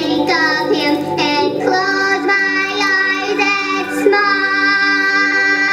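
A child-like voice singing with a recorded musical backing track; after a short sung phrase, the voice holds one long note from about two seconds in.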